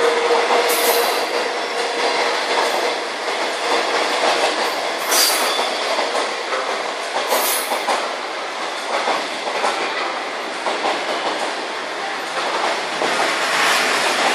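Kowloon Through Train passenger coaches passing a station platform without stopping: a steady rumble of wheels on rail with clickety-clack at the rail joints, and three brief high hissing bursts. A held steady tone fades out about a second in.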